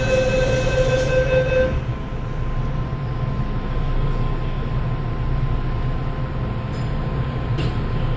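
MTR M-Train door-closing warning tone sounding steadily and cutting off about two seconds in as the doors shut, followed by the low steady hum of the train standing at the platform, with a couple of faint clicks near the end.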